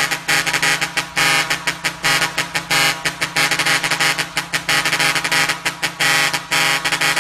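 A bus's custom air horn played as a rhythmic tune: a loud, buzzy, many-toned blare broken by short gaps several times a second.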